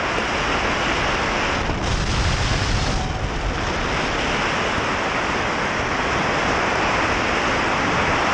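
Freefall airstream in a tandem skydive rushing over the camera microphone: a loud, steady roar of wind noise.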